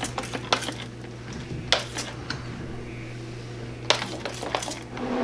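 Hand spray bottle trigger clicking as it spritzes a light mist of hydrogen peroxide over a tray of hatching eggs, in three quick bursts of three or four pumps each, over a low steady hum.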